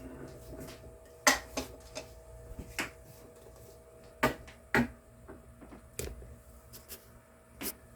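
Scattered sharp clicks and knocks of a utensil against cookware, about seven of them spaced irregularly, over a faint steady hum.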